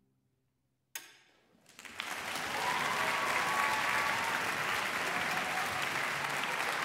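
Audience applause: after about a second of near silence and a single sharp crack, clapping swells quickly and holds steady.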